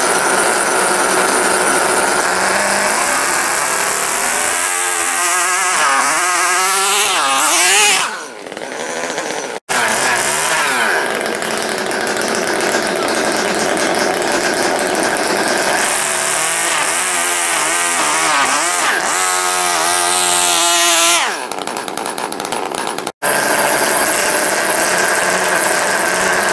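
Small model glow-fuel engines of RC pulling tractors running flat out, a high-pitched buzzing note whose pitch wavers up and down as the load changes during the pulls. The note drops away suddenly about 8 seconds in and again about 21 seconds in as runs end, and breaks off abruptly twice.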